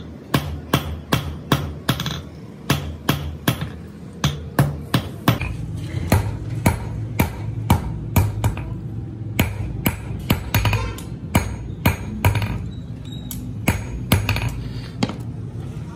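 Hand hammer striking red-hot bearing steel on an anvil, about three ringing blows a second at first, then more spaced and uneven strikes with a few pauses. A steady low hum comes in about five seconds in.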